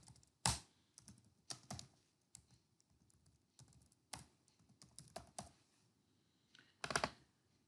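Typing on a computer keyboard: irregular keystrokes in short groups with pauses between, as component names are typed into a search box.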